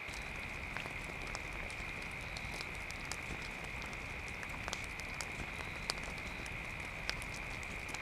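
Wood campfire crackling: irregular sharp pops and snaps over a steady low rush.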